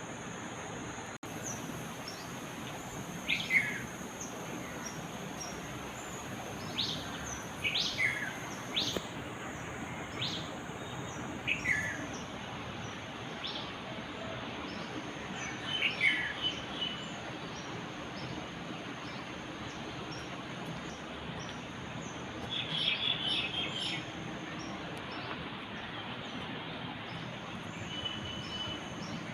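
Birds calling: sharp down-slurred calls repeated every second or two through the first half, then chattering bursts about halfway and again past three-quarters of the way, over a steady background hiss with a thin, continuous high tone.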